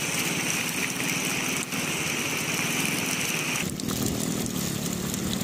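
A fishing boat's engine running steadily with a fast, even pulse. About three and a half seconds in, a higher hiss drops away and a steadier, lower hum comes in.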